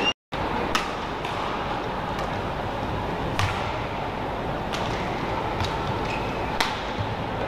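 Badminton rally: a handful of sharp racket hits on the shuttlecock, a second or more apart, over the steady hum of a large indoor hall. The sound drops out for a moment just after the start.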